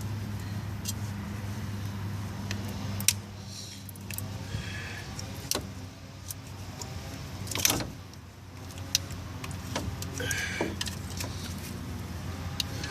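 Scattered sharp metallic clicks and clinks of hand tools and parts during hands-on work under a car's hood. The loudest knocks come about 3 seconds in and just before 8 seconds. A steady low hum runs underneath.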